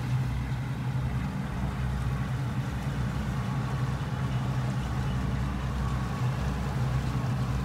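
Boat engine running steadily while the boat cruises, a constant low hum under an even rushing noise.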